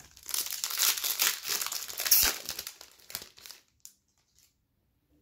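Plastic wrapper of a Topps Pro Debut trading-card pack being torn open and crinkled, loudest a little over two seconds in, stopping after about three and a half seconds.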